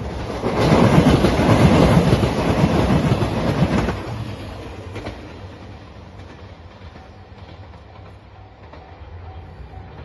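JR Shikoku Nanpu limited express diesel train passing close by, loud for about three seconds with engine and wheel noise on the rails, then fading as it runs away. A level-crossing bell keeps dinging at an even pace in the second half.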